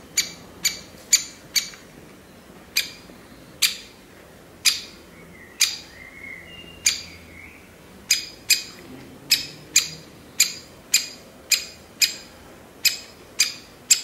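Great spotted woodpecker chick giving sharp, short begging calls from its nest hole, about two a second. For a few seconds in the middle they slow to about one a second, then speed up again.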